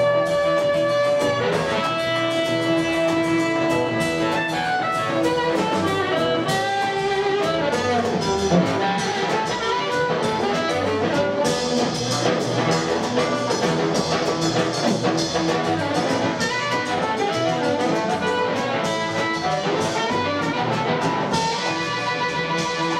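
Live blues band playing an instrumental break: an amplified blues harmonica holds long notes at first over electric guitar, double bass and drums, then the playing turns busy with quick runs of notes.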